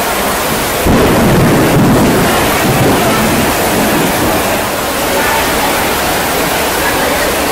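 Heavy storm rain pouring down: a loud, steady rush of noise, with a deeper rumble rising about a second in and easing off over the next couple of seconds.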